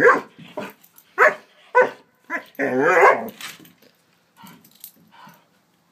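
Young Doberman barking in fear at a toy horse: several short, loud barks over the first two and a half seconds, a longer drawn-out one around three seconds in, then quieter sounds near the end.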